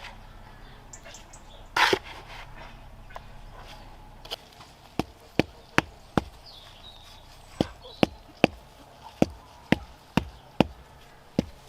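A series of about a dozen sharp taps or knocks in irregular quick groups, preceded by a short louder burst of noise about two seconds in.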